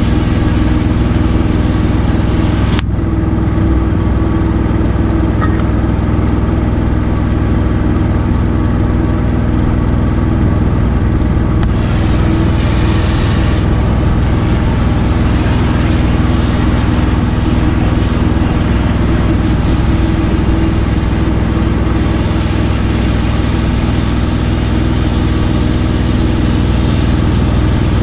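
An engine runs at a steady speed throughout, most likely the engine-driven welding machine powering the repair. Over it, an electric welding arc crackles and hisses for the first few seconds and breaks off with a click about three seconds in, then strikes again briefly in the middle and once more near the end.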